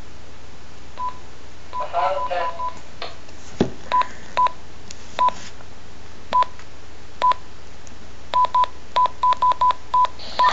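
Keypad beeps from a Relm BK RPV3600A+ handheld radio as its buttons are pressed: short beeps all at one pitch, one per press, spaced out at first and then coming in a quick run near the end.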